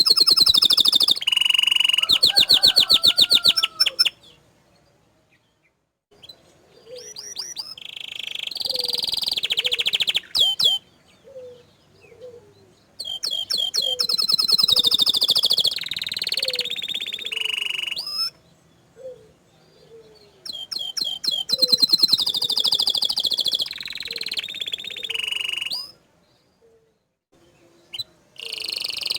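Domestic canary singing in long bursts of rapid high-pitched trills and rolls, broken by a couple of short pauses.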